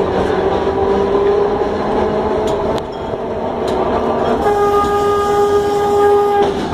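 Heliopolis tram running, heard from the driver's cab: a steady rolling rumble with a few light clicks. About four and a half seconds in, a horn sounds on one steady pitch for about two seconds and cuts off sharply.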